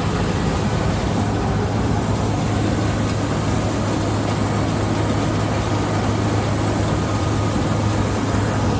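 Engine of rice harvesting machinery running steadily: a constant low hum under a loud, even mechanical noise.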